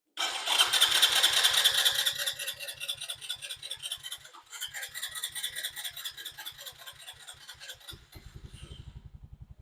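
Electric starter cranking the Lifan KP Mini SS3's cold single-cylinder engine at a steady chug of about five beats a second, with a short pause about four seconds in. Near the end the beat turns quicker as the engine catches and fires on its first start.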